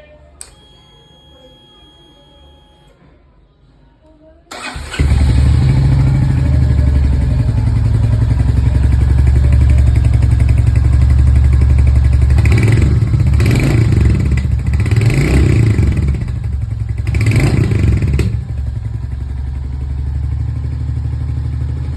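Royal Enfield Hunter 350's single-cylinder engine with its stock exhaust. About half a second in there is a click and a brief whine, then the engine starts about four seconds later and idles. It is revved in four short throttle blips before settling back to idle.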